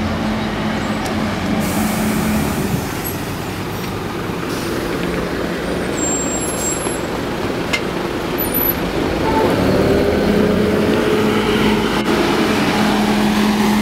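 Scania Enviro400 double-decker bus's diesel engine pulling away and driving past close by. Its note rises and grows louder from about ten seconds in as it accelerates.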